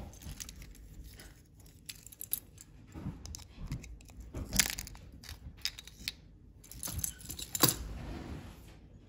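Small clicks and scrapes of a pocketknife blade prying at a coin-cell battery held in a plastic key fob shell, with two sharper clicks, one about halfway through and one near the end.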